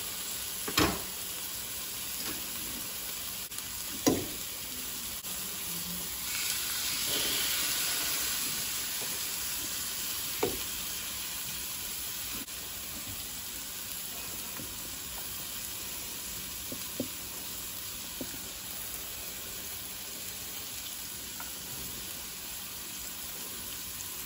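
Steak sizzling in a hot frying pan, the sizzle swelling for a few seconds as pineapple rings and onion are added. A few short knocks of a utensil against the pan, the loudest about four seconds in.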